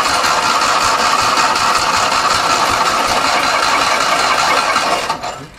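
Fiat 126p's 594 cc two-cylinder air-cooled engine being started, turning over and running on petrol squirted into the carburettor, in its first start attempt after more than 30 years laid up. The sound is steady, then cuts off abruptly about five seconds in.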